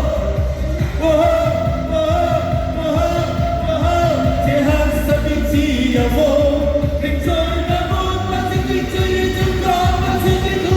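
A Cantonese pop song sung to a backing track: a singer holds long, sustained notes over a steady drum beat.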